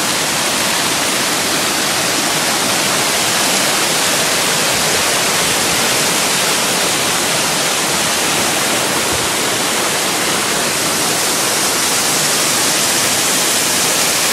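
Mountain stream rushing over rocks and pouring down a small waterfall: a steady, loud rush of white water with no break.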